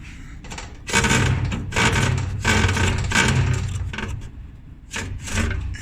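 Maytag dryer blower fan being spun, scraping and rubbing in several loud rough strokes starting about a second in, with a few shorter ones near the end. The scrape comes from a small metal earring ball lodged inside the fan housing, which the fan strikes as it turns.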